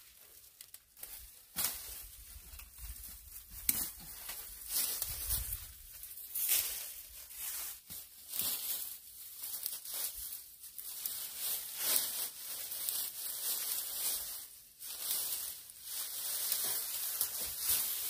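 Dry dead weeds and vines being pulled loose and torn away by hand: irregular crackling and rustling of brittle dry stems and leaves.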